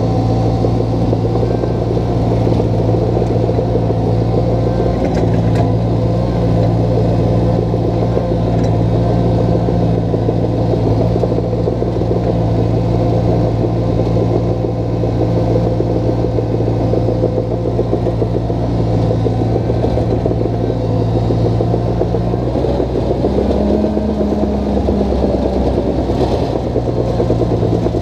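Small crawler dozer's diesel engine running steadily under work, with its note shifting briefly about three quarters of the way through before settling back.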